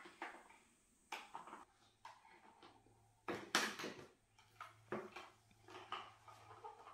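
Plastic toy dishes, cups and toy food knocking and clattering on a plastic table, in scattered short taps with the loudest clatter about halfway through.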